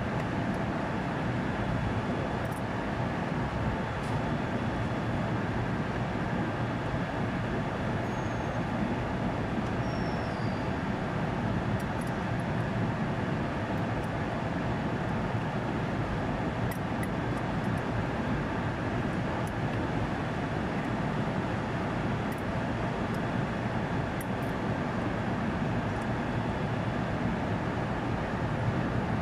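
Steady mechanical rumble and hum of running plant-room machinery around a large air-conditioning unit, even in level throughout, with a few faint clicks.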